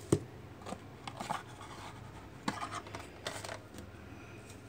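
A cardboard trading-card box being handled and opened, with the cards slid out. It makes a scatter of short cardboard scrapes, rubs and taps, the sharpest right at the start.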